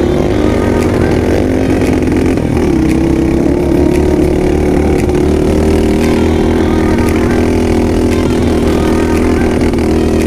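Dirt bike engine running steadily under throttle, its note dipping briefly and climbing back about two and a half seconds in, with scattered sharp knocks as the bike jolts over rough ground.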